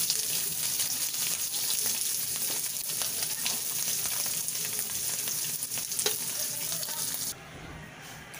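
Dried salted fish (tuyo) sizzling as it fries in oil in a steel wok, with a metal spatula scraping and clicking against the pan. The sizzle cuts off abruptly near the end.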